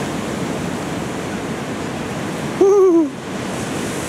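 Steady rush of ocean surf, broken about two and a half seconds in by a short hooting shout from a person, its pitch rising slightly and then falling away.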